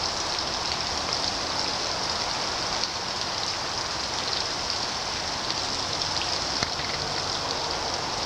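Steady, even hiss of water with a fine patter of small ticks through it.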